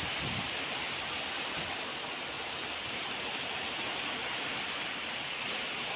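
Heavy rain falling in a steady downpour, an even unbroken wash of noise.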